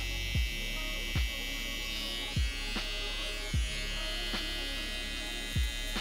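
Electric hair trimmer (detailer) buzzing steadily as it cleans around the ear. Under it runs background music with a deep kick drum that falls in pitch, roughly once a second; the kick is the loudest sound.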